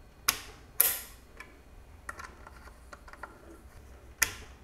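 Torx torque wrench clicking over as it reaches its set torque on a TR4 CPU socket retention screw, the sign that the screw is torqued to spec. Two sharp clicks about half a second apart, another near the end, and fainter ticks between.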